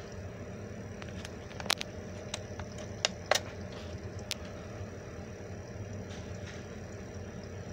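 Steady low background hum with a handful of sharp clicks in the first half, two of them close together about three seconds in.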